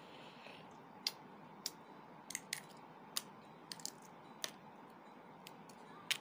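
Shell of a boiled balut duck egg crackling as it is picked off by hand: a string of about ten sharp, irregular clicks, some in quick pairs.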